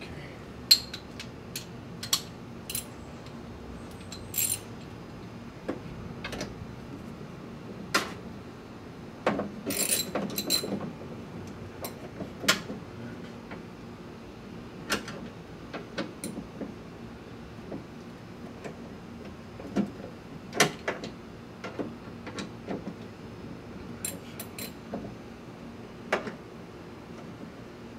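Scattered metallic clicks and clinks of hands and loose parts moving inside the bare steel door shell of a 2001 Dodge Dakota, with a few sharper, ringing clinks in small clusters, over a steady low hum.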